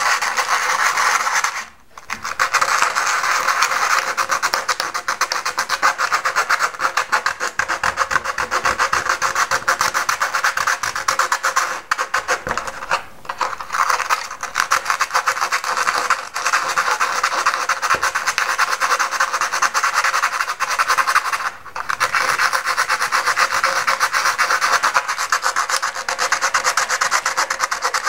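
80-grit sandpaper rubbed by hand in rapid back-and-forth strokes inside a flap servo bay of a molded carbon-fibre sailplane wing, scuffing the glossy skin so the servo frame will bond. The sanding runs on steadily, stopping briefly about two seconds in, around the middle, and about three quarters of the way through.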